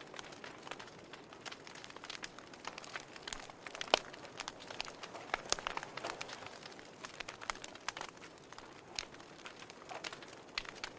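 Fire in a fireplace crackling: irregular sharp pops and snaps over a faint steady hiss, with one loud pop about four seconds in.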